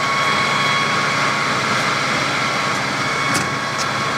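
Clausing Colchester VS12 variable-speed metal lathe running with its cross-slide power feed engaged: a steady motor and gear whine with a mechanical hum underneath.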